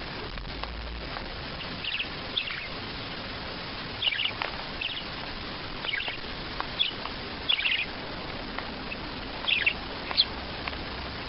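A small bird chirping in short, high calls, scattered irregularly a second or so apart, over a steady background hiss.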